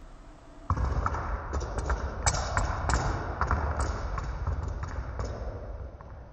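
A run of irregular sharp taps and knocks over a low rumbling noise, starting suddenly about a second in and dying away near the end.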